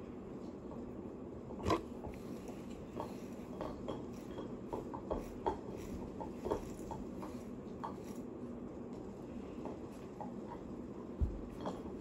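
Scattered light clicks and taps of small objects being handled, over a steady low hum.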